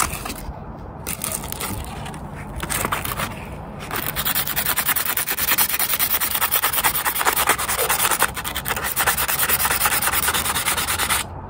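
Sandpaper rubbed by hand in rapid short back-and-forth strokes along the metal body of a diesel fuel injector. The strokes are fainter and broken by brief pauses for about the first four seconds, then louder and steady.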